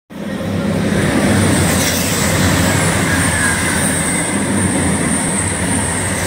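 Avanti West Coast Class 390 Pendolino electric train running past at speed, a steady loud rush of wheels on rail with a high whine held over it.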